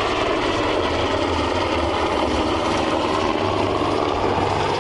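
NH90 military helicopter in flight, its twin turboshaft engines and rotor giving a steady, unbroken din.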